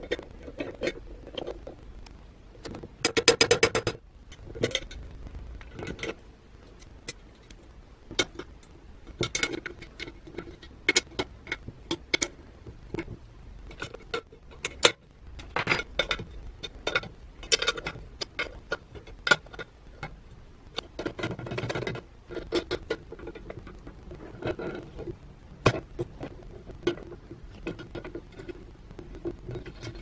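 Metal clinks, taps and clicks as parts and a socket tool are worked on a cast-iron coffee grinder during reassembly. There is a short burst of rapid clicking about three seconds in, and another busy run of clicks about twenty-one seconds in.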